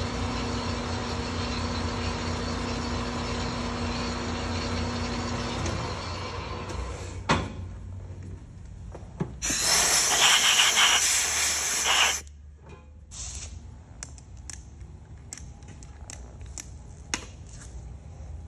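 Machine-shop sounds: a machine runs steadily with a low hum and stops about six seconds in. After a couple of knocks, compressed air hisses for nearly three seconds, starting and stopping abruptly. Scattered light clicks and taps of parts being handled follow.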